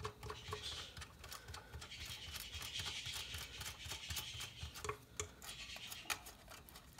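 Faint scraping and scattered light clicks of fingers handling the connectors on the back panel of a satellite receiver.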